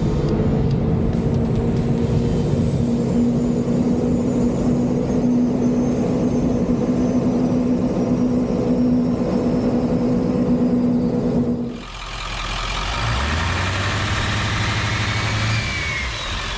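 Truck driving at a steady speed, a loud, steady droning hum. About twelve seconds in the sound cuts to a lower engine note that rises slightly, with a faint rising whistle near the end.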